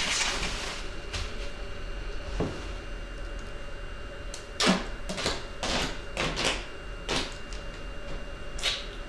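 Bubble wrap crinkling as it is turned over. Then duct tape is pulled off the roll in a series of short, rasping rips.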